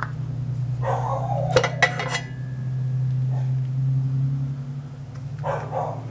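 Small plastic parts and a circuit board clicking and clattering as they are handled and set down on a workbench mat, over a steady low hum that swells and fades in the middle.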